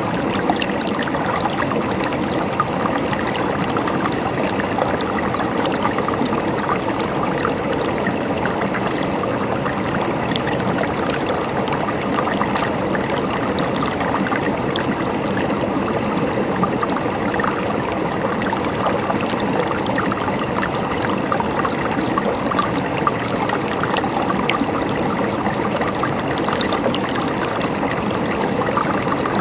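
A stream of water flowing steadily, an even trickling rush that does not change.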